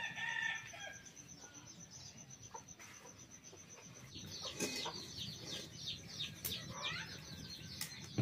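Domestic chickens clucking, a few calls at first and then a quick run of short repeated calls in the second half.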